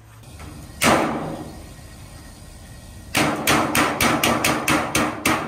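Hammer blows on a length of rectangular sheet-metal duct, the metal ringing after each strike: one single blow about a second in with a long ringing decay, then a quick run of about a dozen blows, roughly five a second, from about three seconds in.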